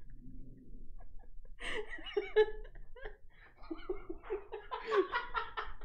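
People laughing in short bursts, starting about two seconds in and again more steadily from about three and a half seconds on.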